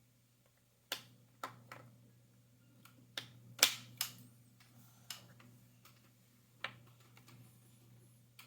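Jigsaw puzzle pieces being handled and set down on a hard surface: a run of sharp, irregular clicks and taps, about eight of them, the loudest few bunched together near the middle.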